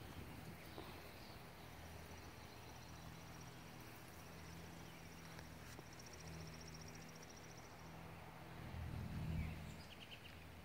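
Quiet outdoor ambience: a faint steady low hum, with a thin high-pitched trill running from about two to eight seconds in, and a brief low rumble about nine seconds in.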